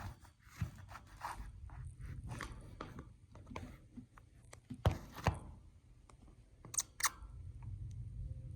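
Scattered handling noises: light rustles, scrapes and clicks, with two sharper knocks about five seconds in and a quick pair of clicks near seven seconds. The air conditioner is not running.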